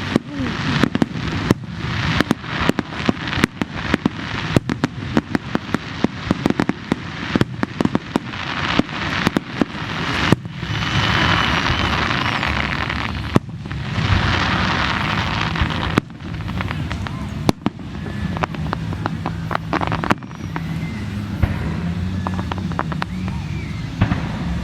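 Fireworks display: a rapid run of sharp bangs, several a second, for about the first ten seconds, then a more continuous noise with fewer, scattered bangs.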